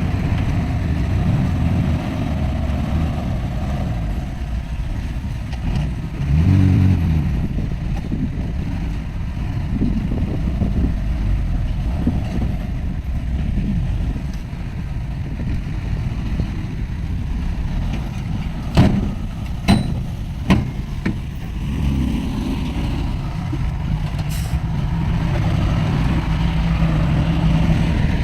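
Heavy diesel earthmoving machinery running steadily, with a brief swell in the engine about six seconds in and three sharp clanks a little after two-thirds of the way through.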